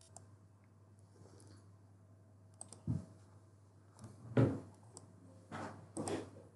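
A few scattered clicks and soft knocks from a computer mouse and desk, the loudest a little past the middle, over a faint steady electrical hum.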